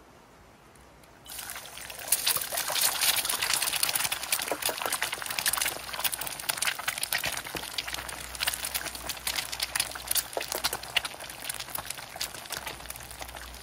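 Hot cooking oil sizzling and spattering in a pan on a camping stove, starting suddenly about a second in with a dense crackle that is loudest for the first few seconds and then settles to a steadier sizzle.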